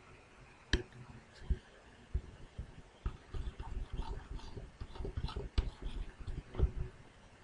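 Pen stylus tapping and stroking on a laptop touchscreen: scattered light clicks and soft knocks, with a few sharper clicks.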